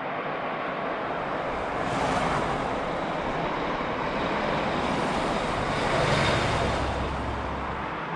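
Steady outdoor rushing noise with a low rumble, swelling about two seconds in and again around six seconds.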